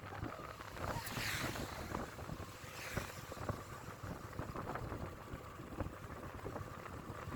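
Wind buffeting the microphone over the rumble of passing road traffic, with a couple of vehicles sweeping by, about one and three seconds in.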